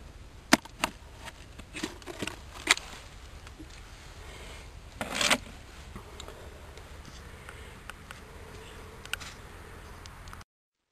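Several sharp clicks and knocks, then a brief louder scraping rustle about five seconds in, over a low steady background; the sound cuts out abruptly near the end.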